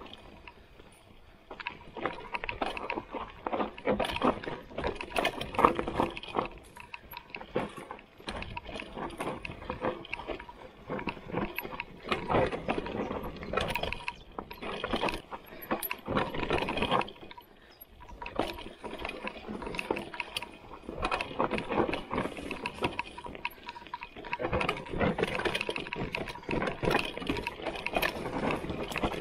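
Trek Roscoe 7 hardtail mountain bike being ridden down a rough trail: tyres crunching over dirt and rock with a dense, irregular rattling and clattering. The noise starts about a second and a half in and comes in uneven rushes with short lulls.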